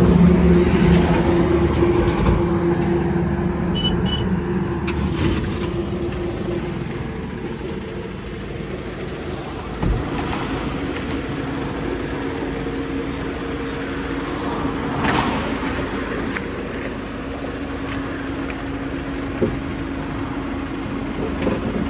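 Motor vehicle engine noise, loudest at the start and fading over the first several seconds as a vehicle goes by, then a steady engine hum with a few light knocks.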